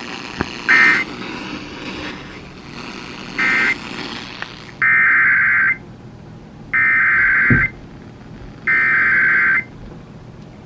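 Emergency Alert System SAME data bursts from a weather-radio broadcast: two short buzzy bursts, then three louder, raspy two-tone bursts of about a second each, a second apart, over a steady receiver hiss. The short bursts fit the end-of-message code closing one warning, and the three long ones the digital header, sent three times, that opens the next warning.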